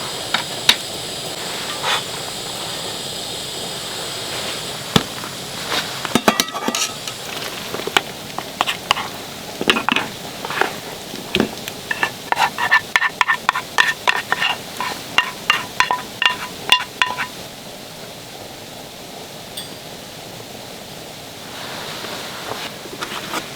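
Scattered knocks and clicks, then a quick run of sharp, lightly ringing clinks, about four a second for some five seconds past the middle.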